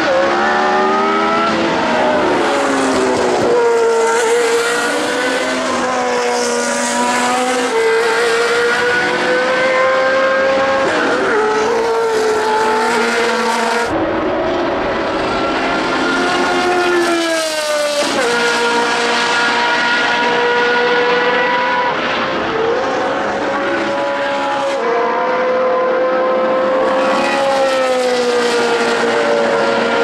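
Ford Cosworth DFV V8 of a 1979 Ligier JS11 Formula One car running at racing speed. Its high engine note climbs and drops sharply again and again as it changes gear and comes on and off the throttle through the corners.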